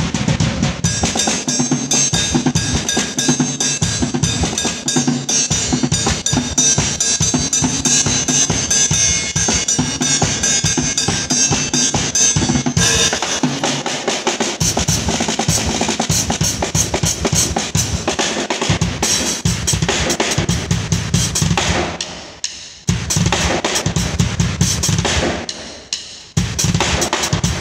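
Acoustic drum kit played as a solo: dense strokes, rolls and fills across snare, toms and bass drum. Cymbals wash heavily through the first half, the bass drum comes forward in the second half, and the playing breaks off briefly twice near the end.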